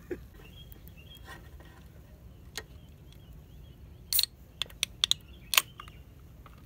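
Aluminium drink can being opened by its pull tab. A cluster of sharp metallic clicks and short cracks, with a brief fizzing burst, comes between about four and six seconds in. A couple of light knocks come earlier.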